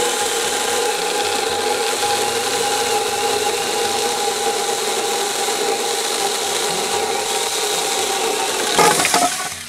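Saker mini cordless electric chainsaw running and cutting through a round wooden post: a steady motor whine under the rasp of the chain in the wood. It swells briefly near the end and then stops as the cut goes through.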